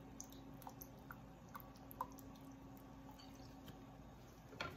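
Near silence: a faint steady hum with a few soft ticks, the sharpest about two seconds in, and a short knock just before the end.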